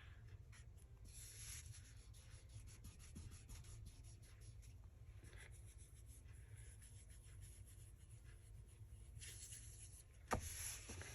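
Faint rubbing and rustling of paper being pressed and smoothed down by hand onto glue, with a louder rustle near the end.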